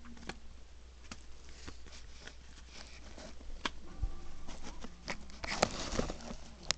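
Yu-Gi-Oh! trading cards being handled and flipped through, making scattered light clicks and paper rustles, with a soft thud about four seconds in. Near the end a louder stretch of rustling and handling noise as the camera is moved.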